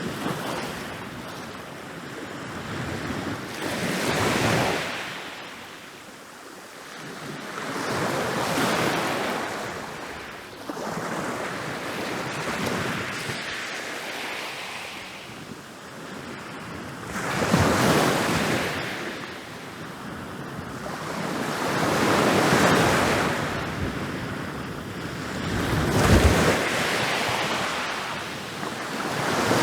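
Ocean waves rolling in and breaking on a beach, each wave swelling into a crash and washing back, about every four to five seconds.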